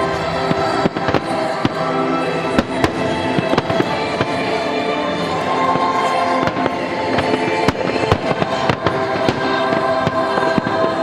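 Aerial display fireworks bursting in sharp bangs at irregular intervals, roughly one to two a second, over steady music.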